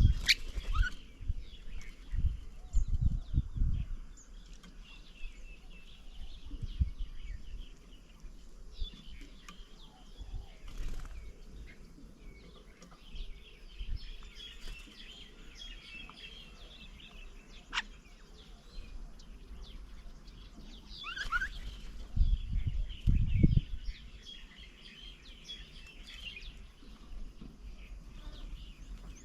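Small birds chirping and chattering in bursts. Low thumps and rumbles come at the start and again about two-thirds of the way in.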